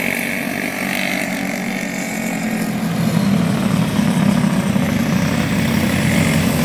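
Racing karts' single-cylinder four-stroke clone engines running at speed, getting louder about three seconds in as a kart passes close by.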